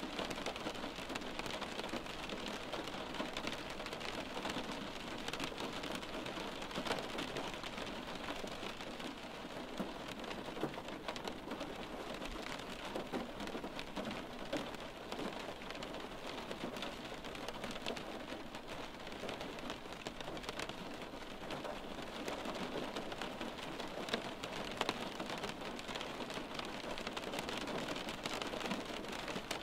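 Steady rain on a window pane: an even hiss with many small drops tapping on the glass, holding steady throughout.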